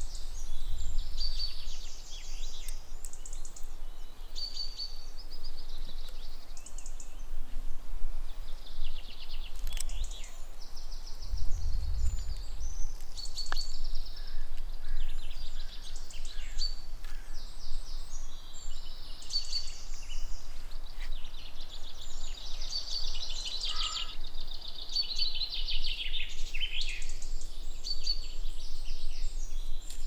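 Wild birds calling outdoors: many short chirps and rapid high trills overlapping throughout, over a steady low background rumble that swells briefly about twelve seconds in.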